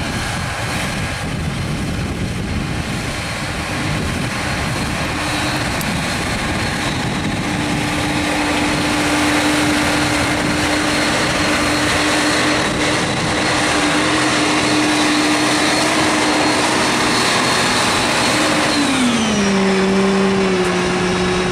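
John Deere 9560R tractor's diesel engine running steadily with a high whine, getting louder as the tractor pulls the two Miskin DW25 scraper wagons toward the microphone. Near the end the engine's pitch drops quickly and holds lower as it slows.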